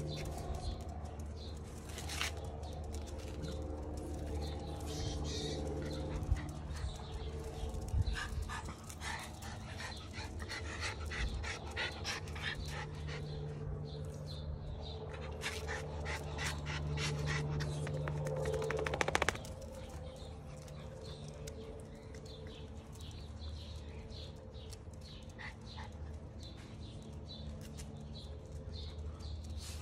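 Miniature schnauzers panting and moving about, with spells of quick short breaths, over a steady low hum.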